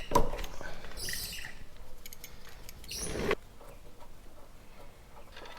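Hand tools working on a motorcycle brake caliper: scattered light clicks and small squeaks, a short hiss about a second in and a louder scraping rustle around three seconds in.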